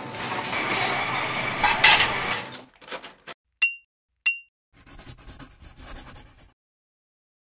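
Crockery clattering for a couple of seconds, then two sharp clinks that ring briefly at one high pitch, followed by fainter clatter.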